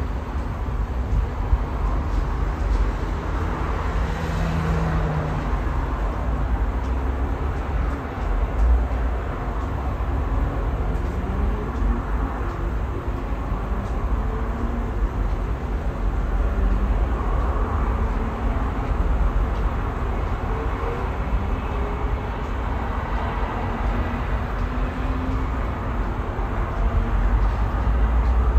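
Wind buffeting the microphone over a steady wash of distant city traffic. An engine note rises in pitch once near the middle.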